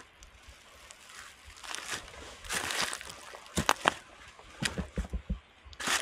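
Footsteps crunching and rustling through dry fallen leaves and twigs on a forest floor. The steps are irregular, with sharp crackles and a few low thuds, and mostly in the second half.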